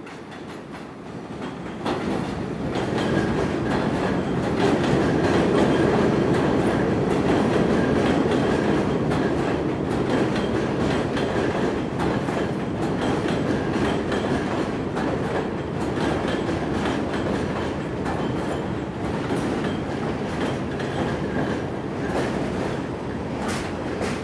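New York City subway rail adhesion (GEL) work train passing at a station, its wheels rumbling and clacking over the rail joints. The sound grows louder over the first three seconds, then runs steadily loud as the cars go by.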